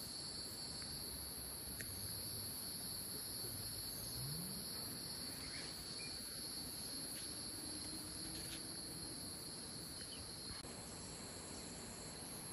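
Steady, high-pitched chorus of insects with an even pulsing beat. About four seconds in, a faint low tone rises and then holds for a few seconds.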